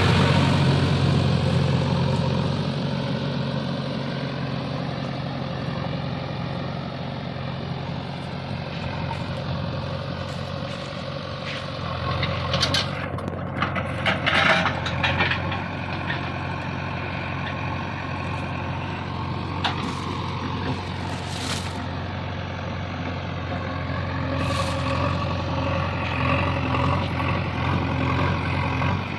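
JCB 3DX backhoe loader's diesel engine running steadily at working speed. About halfway through there is a burst of knocking and rattling, with a few sharp knocks later. The engine gets a little louder near the end.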